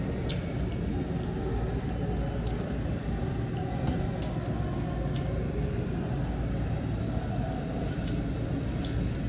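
Close-up chewing of crisp green mango: scattered sharp crunches and mouth clicks, about one a second, over a steady low background rumble.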